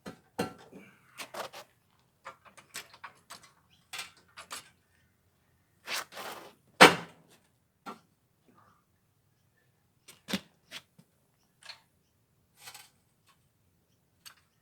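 Scattered metal clicks and clunks of a car being let down off a jack onto axle stands, with one loud clunk about seven seconds in.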